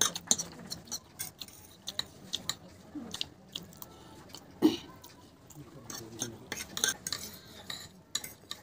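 Two metal forks clinking and scraping against a plate while chow mein noodles are picked up and eaten, with chewing between, and one louder clink about halfway through.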